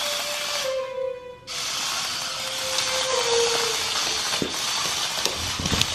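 Background music: a slow, held melody over a steady, even whirring noise.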